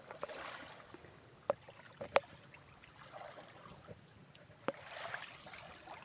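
Faint sloshing and lapping of shallow seawater around a person wading out, with a few short sharp clicks.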